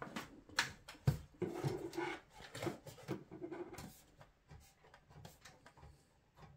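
Steel PC case and its motherboard tray being pushed and pulled by hand: a run of clicks, knocks and metal rubbing, thinning to scattered clicks after about four seconds. The tray does not slide free.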